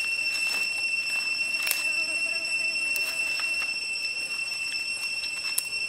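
Steady high-pitched insect drone, one unbroken whine with overtones, with scattered faint clicks and crackles over it.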